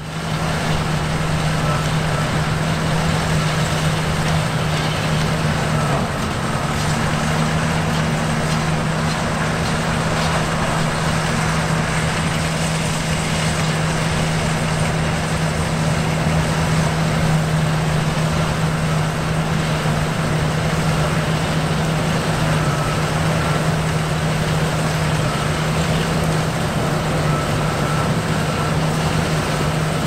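John Deere T670i combine harvester running steadily while cutting flat oats: a constant engine hum under an even rush of threshing and header machinery noise.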